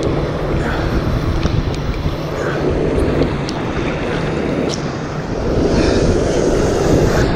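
Sea water sloshing and surf breaking close to the microphone, with wind buffeting the microphone; it grows louder about five and a half seconds in.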